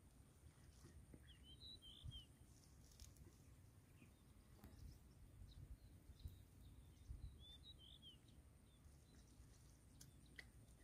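Near silence: faint rural ambience with a low rumble, and two brief clusters of faint bird chirps, about one and a half seconds in and again about seven seconds in.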